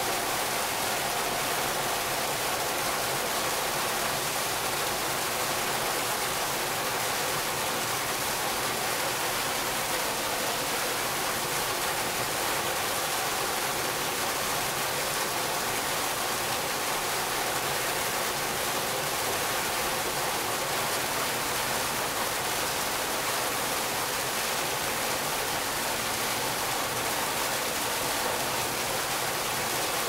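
Artificial waterfall: a narrow stream of water pouring from a ledge and splashing into a shallow pool, a steady, unbroken rush of water.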